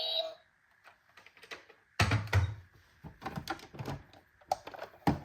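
A toy vehicle's electronic sound cuts off just after the start; then, after a short lull, a run of sharp plastic clicks and knocks as miniature toy ambulances and fire trucks are handled and bump together.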